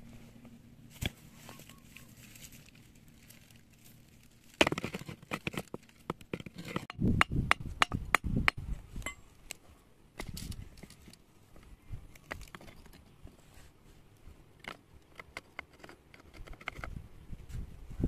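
Irregular knocks, clinks and short scrapes of stones and earth being shifted as ground is cleared and levelled, busiest from about five to nine seconds in.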